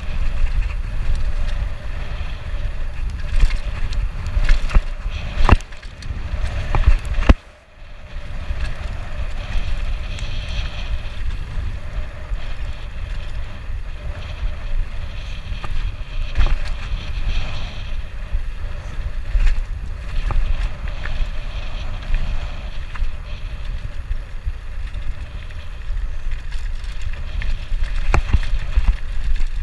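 Wind rushing over a chest-mounted GoPro's microphone and the tyres of a Norco Shore 2 mountain bike rolling fast over a dirt trail: a steady low rumble and hiss with scattered sharp knocks. The noise drops away for about half a second at around seven and a half seconds in.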